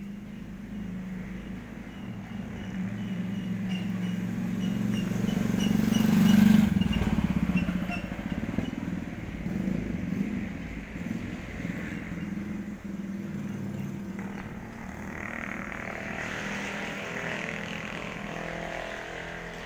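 A motor vehicle's engine running, growing louder to a peak about six seconds in and then fading away, as a vehicle passing by.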